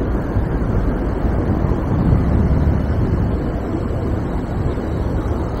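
Steady wind rumble on the microphone from riding a bicycle, over the sound of city street traffic.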